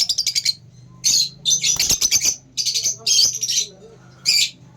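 Lovebirds chattering: shrill, rapid chirping calls in several short bursts with brief gaps between them.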